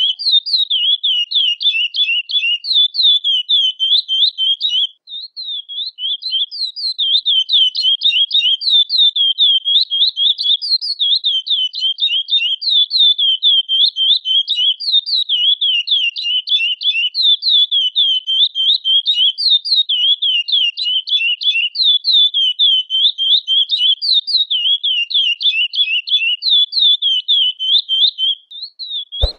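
Chestnut-bellied seed finch (curió) calling in a long, fast run of short, high, downward-sliding notes, about five a second, with a brief break about five seconds in.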